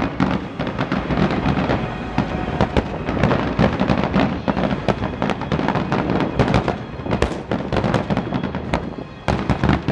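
Aerial fireworks shells bursting in a rapid, continuous barrage of bangs, several a second, with a brief lull about nine seconds in.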